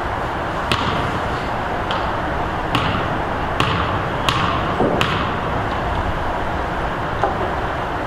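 A basketball bouncing on a gym floor: about seven sharp, irregularly spaced thuds, each with a short echo, over steady gym background noise.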